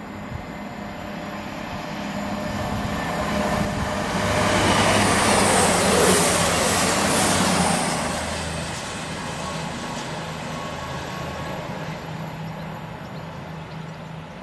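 Express passenger train passing through the station at speed without stopping. The rush of wheels and air builds over the first few seconds, is loudest through the middle, then fades as the train recedes.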